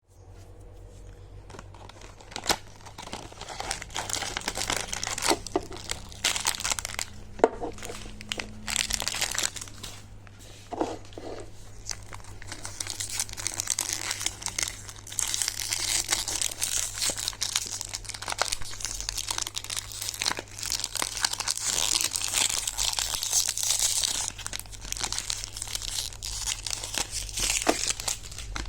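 Packaging being handled: irregular crinkling and rustling with sharp clicks and some tearing, busiest in the second half, over a steady low hum.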